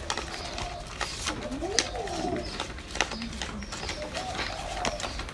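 Banknotes being counted by hand: a run of crisp paper flicks and rustles. A bird coos in short repeated phrases behind them.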